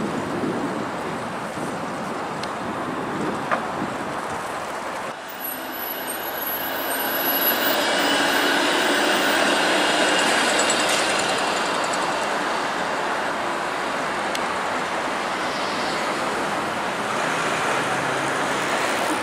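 A Flexity Outlook low-floor streetcar passing close by on its rails, a hum with a few whining tones that swells about eight to ten seconds in and eases as it moves away. Before it, a few seconds of street traffic noise that changes abruptly about five seconds in.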